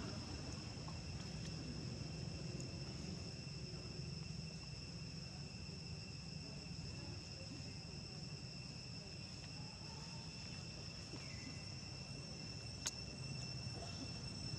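Insects droning steadily, two high, unwavering tones held throughout, over a constant low rumble, with a single sharp click near the end.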